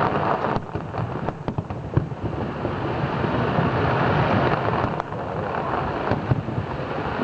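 Fireworks display in full swing: a dense barrage of sharp bangs and crackling over a continuous low rumble.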